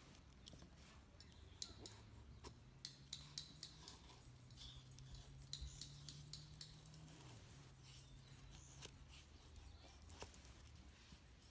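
Faint, irregular crisp snips and scrapes of tinder being prepared by hand, with a faint low hum underneath for most of it.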